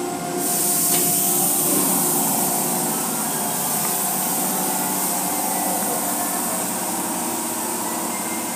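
Automatic car wash tunnel machinery running: spinning cloth brushes and water spray jets, a steady hiss over a machine hum. The hiss gets louder about half a second in and stays steady.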